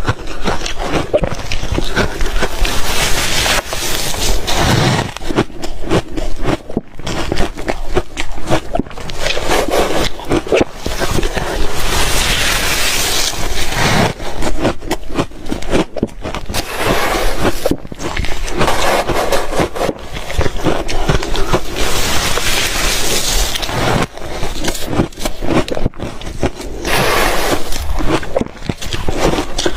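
Ice being bitten and chewed close to the microphone: a dense, irregular run of loud crunches and cracks.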